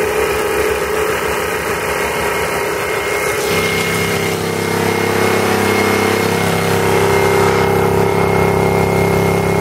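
Briggs & Stratton model NP single-cylinder engine running steadily, belt-driving a Farmaster 600-watt generator, with a thin steady high whine over the engine note.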